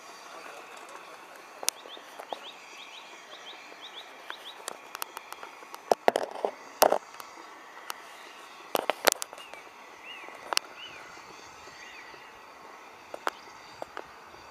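A bird singing a quick run of short rising chirps, then a few arched calls later on, over a steady background hiss. Sharp clicks and knocks break in throughout, loudest in a cluster about six to seven seconds in and again around nine seconds.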